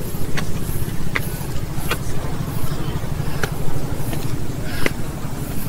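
Wind buffeting the camera microphone, a steady low rumble with scattered sharp clicks.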